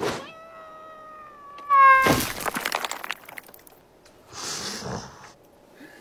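Cartoon sound effects: a sharp hit, then a long, slightly falling wailing tone for about a second and a half that jumps higher just before a loud crash with clattering debris about two seconds in. A shorter rushing noise follows near the end.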